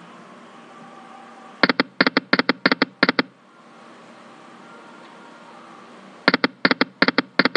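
Choy Sun Doa video slot game reel-stop sound effects on autospin: a quick, even run of short pitched ticks, roughly one pair per reel across five reels. It plays twice, once for each spin, over a faint steady game background.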